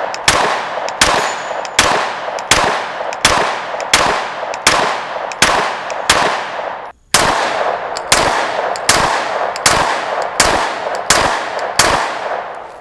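Shadow Systems MR920 9mm pistol firing a steady string of about sixteen shots, one roughly every three-quarters of a second, each shot trailing off in an echo. There is one brief gap about seven seconds in.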